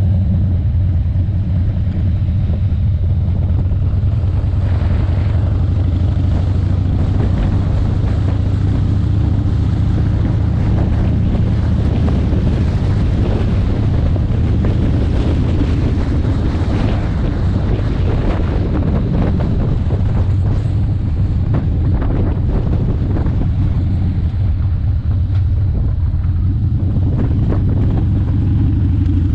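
Motorcycle engine running at a steady low drone on the move, with wind noise on the onboard microphone that swells through the middle.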